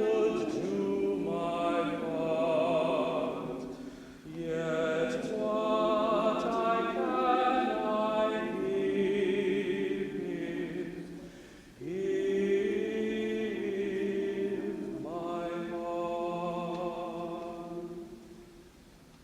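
A choir singing a slow, sustained piece in several long phrases; the final phrase dies away near the end.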